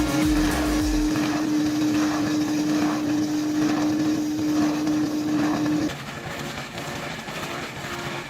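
A heavy machine running with a steady, even whine, cutting off about six seconds in to quieter, rougher engine noise.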